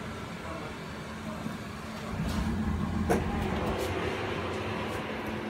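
Bonnet Hobart 10-grid gas combi oven running with a steady hum that grows louder about two seconds in. A single sharp click comes about three seconds in.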